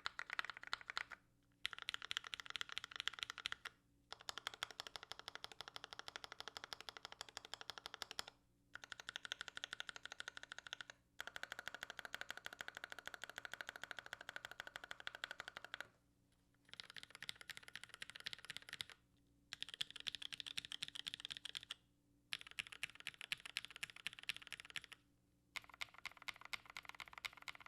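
Typing on a dual-gasket Noxary Vulcan Pro mechanical keyboard with linear Tealios switches in Cherry top housings, an aluminium plate and GMK doubleshot ABS keycaps: quick, even keystrokes in runs of a few seconds, broken by short pauses.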